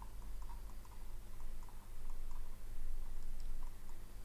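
Faint, irregular computer mouse and keyboard clicks, several in the first two seconds and fewer after, over a steady low electrical hum.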